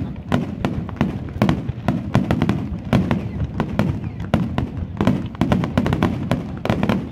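Aerial fireworks shells bursting in a rapid barrage: many sharp bangs and crackles each second over a continuous low rumble.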